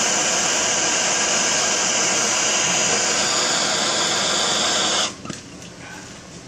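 Handheld gas torch flame rushing steadily as it heats aluminum for low-temperature brazing; the sound drops away sharply about five seconds in.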